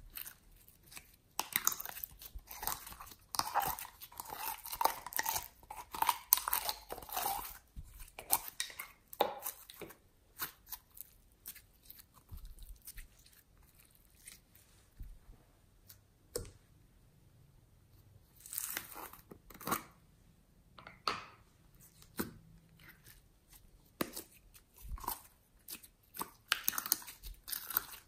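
Sticky glossy slime being peeled, stretched and pulled out of plastic containers by hand, making irregular runs of small sticky pops and clicks, dense at first, sparse in the middle, and busy again near the end.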